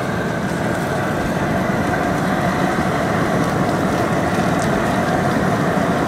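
Steady roar of a propane burner firing under a large crawfish boil pot of seasoned water.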